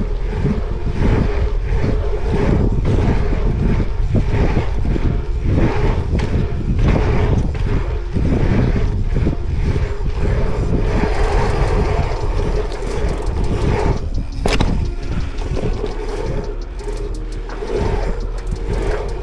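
Dirt jump bike riding a pump track: tyres rolling on asphalt and wind rushing over the rider's camera microphone, with a constant rattle of small clicks and one sharp knock about three-quarters of the way through.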